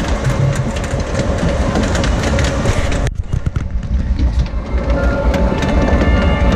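Log flume ride boat clattering along its track, a rapid run of clicks over a steady rumble. The clatter thins out abruptly about three seconds in, then builds again.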